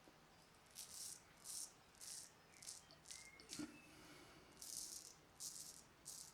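Filarmonica 4/8 straight razor scraping through lathered stubble in a run of short strokes, about one every half second, with a brief pause around the middle. The strokes are faint and high-pitched.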